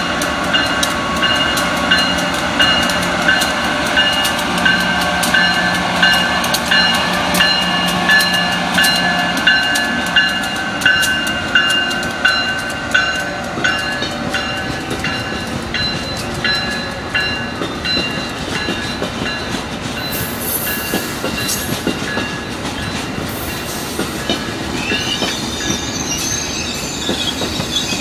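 Amtrak AEM-7 electric locomotive and Amfleet passenger coaches rolling past. A steady low hum from the locomotive fades about ten seconds in, while the wheels click in a steady rhythm over the rail joints. High-pitched wheel squeal sets in from about two-thirds of the way through and grows near the end.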